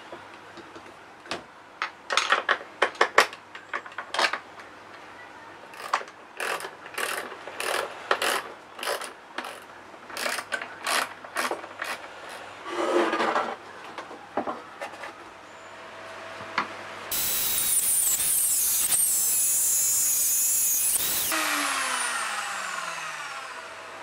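Scattered clicks and knocks as a washing-machine motor is handled and fastened into a wooden mount. About 17 s in, a Bosch drill fitted with a hole saw runs loudly for about four seconds cutting a disc out of wood, then winds down in a falling whine.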